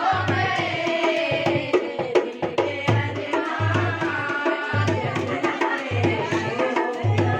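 Music with a steady drum beat and a wavering melody line over it.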